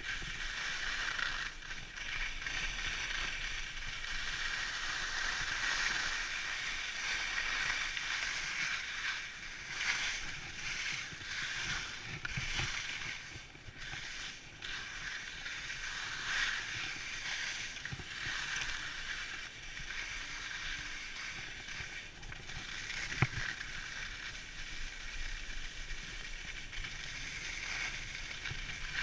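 Alpine skis sliding and scraping over packed snow: a steady hiss that swells and eases with each turn, with one sharp click past the middle.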